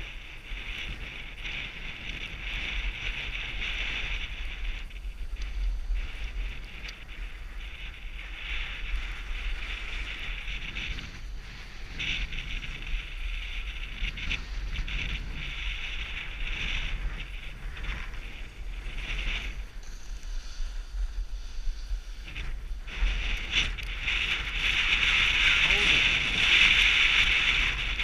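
Skis hissing and scraping over groomed piste snow on a downhill run, swelling and easing with each turn and louder in the last few seconds, over a low wind rumble on the microphone.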